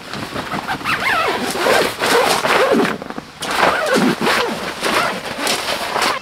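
Wordless vocal cries or squeals, sliding up and down in pitch in several bursts, over rough rushing noise.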